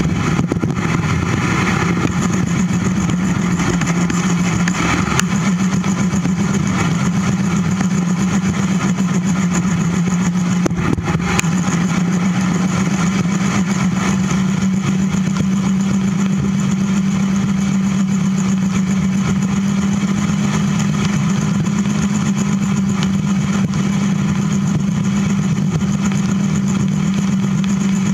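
Steady wind rush and tyre noise on a bicycle-mounted camera riding a paved trail at about 17 mph, with a steady low hum underneath.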